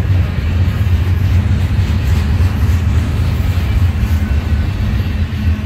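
Double-stack intermodal container well cars rolling past, a steady low rumble of steel wheels on the rails.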